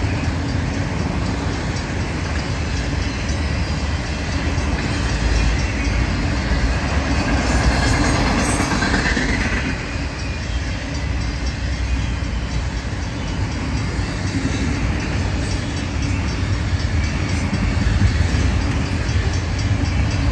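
Autorack freight cars rolling steadily past at close range: a continuous rumble of steel wheels on rail, with wheels clicking over rail joints.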